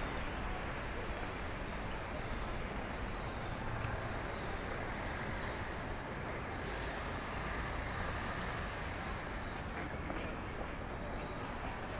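Steady street ambience: traffic hum from the road alongside, with faint high chirps of insects in the roadside trees.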